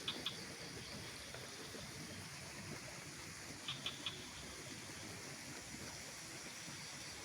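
Quiet mountain outdoor ambience: a steady faint hiss, with a quick set of three high chirps from a small animal at the start and the same three chirps again about four seconds in.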